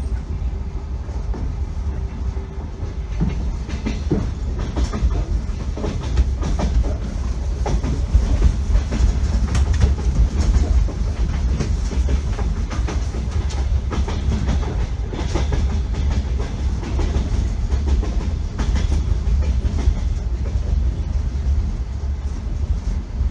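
Passenger train running, its wheels knocking over rail joints at uneven intervals above a steady low rumble, heard from inside the carriage.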